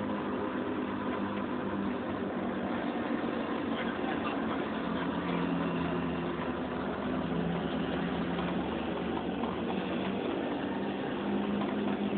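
Steady drone of truck engine and tyre noise on pavement, heard from inside the cab of a Chevy K5 Blazer being towed downhill with a broken transmission. The pitch wanders slightly.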